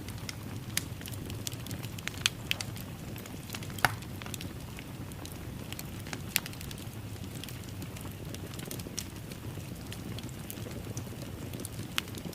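Wood fire crackling in a fireplace: irregular sharp pops and snaps, a few of them loud, over a steady low rumble of the flames.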